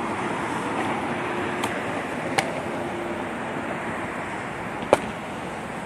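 Steady outdoor hiss with three sharp smacks of a thrown ball landing, about a second and a half in, near two and a half seconds, and the loudest one about five seconds in.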